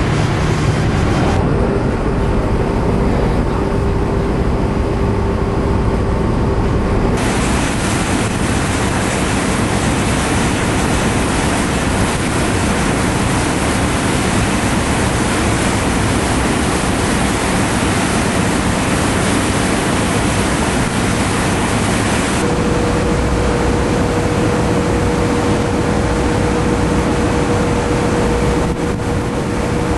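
Steady rumble of a large car ferry under way, with the rush of its churning wake water and a constant low hum. The sound shifts abruptly a couple of times.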